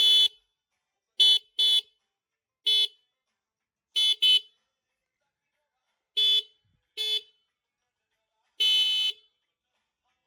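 A 12-volt electromagnetic motorcycle horn, powered from an electric bike's battery through a regulator circuit, sounding in short beeps: about nine blasts, some in quick pairs, with the last a little longer. The horn works on the new circuit.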